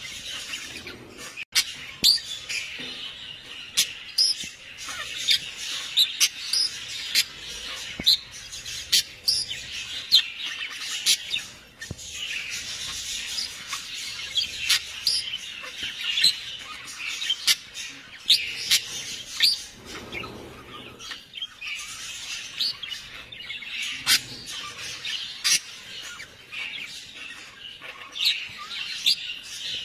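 Many birds chirping and calling at once in a dense, overlapping chorus, with frequent sharp clicks among the calls.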